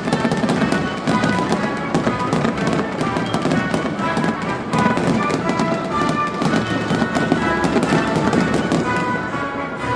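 Music playing, with fireworks crackling and banging over it: many sharp cracks throughout.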